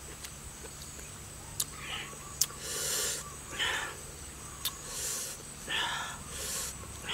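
A person slicing crisp fruit with a knife and eating it. There are a few sharp cutting and crunching clicks, and between them short hissing, sucking breaths and open-mouthed eating sounds, coming every second or so.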